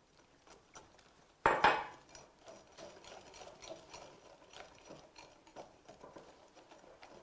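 Kitchenware clunks sharply once, about a second and a half in. Then faint clicks and scraping of a whisk or spoon follow as eggs are stirred into cornbread batter in a mixing bowl.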